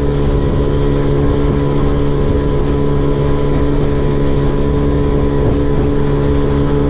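Small boat's outboard motor running at a steady, unchanging speed.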